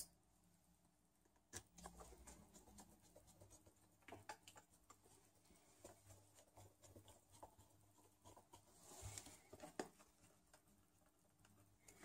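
Near silence with faint scattered clicks and scratches from a small precision screwdriver driving the last screw into the Panasonic Toughbook CF-18's bottom cover, and a short cluster of light handling noises about nine seconds in.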